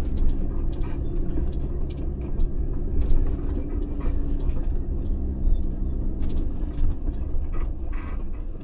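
Ram ProMaster camper van running at low speed over a rough, rocky dirt road, heard from inside the cabin: a steady low engine and road rumble with scattered clunks and rattles from the bumpy track.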